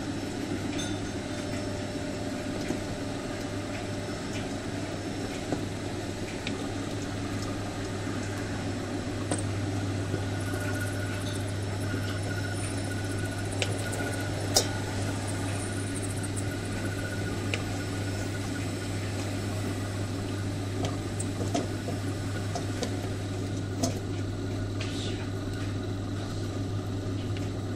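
Steady low hum of a running kitchen appliance, with a few light clinks and scrapes of a spoon against a metal mesh strainer.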